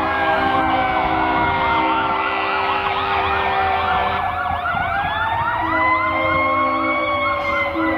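Several fire truck sirens sounding at once, some in a fast repeating yelp and others in a slow wail that rises and falls.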